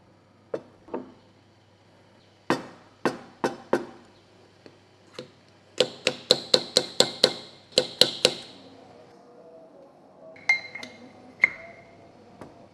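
Metal knocks and clinks from a Kinu M47 hand coffee grinder and its steel grounds cup as the fresh espresso grounds are tapped out. There are a few sharp knocks, then a quick run of about ten ringing taps, about four a second. Near the end come two clinks that ring on briefly.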